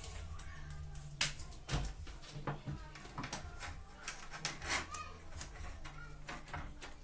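Hands working on washing-machine timer wiring and insulating tape: scattered clicks, taps and rustles, with one sharp click about a second in.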